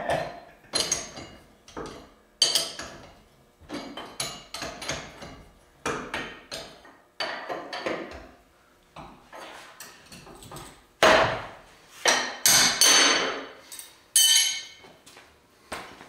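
Hand wrenches clinking and knocking against steel bolts and the frame of a Caterpillar 242D skid steer as the bolts are turned by hand. The clicks and clanks come irregularly, and the loudest come a little past halfway.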